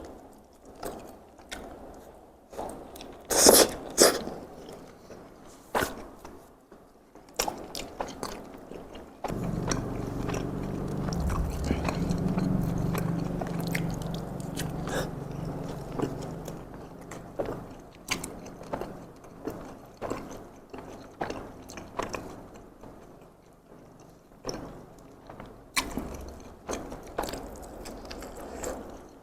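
Close-miked chewing and biting of takoyaki, with wet mouth clicks and smacks throughout. Two loud sharp clicks come about three to four seconds in, and a steadier low muffled sound runs for several seconds near the middle.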